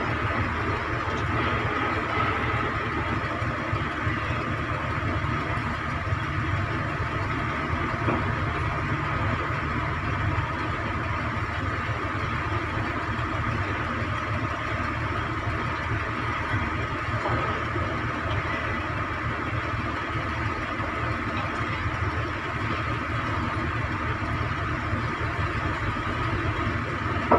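Heavy piling machinery running steadily, diesel engines and hydraulics of the crane and vibratory hammer rig setting a 1650 mm steel pile casing. A constant low drone with a faint steady whine above it.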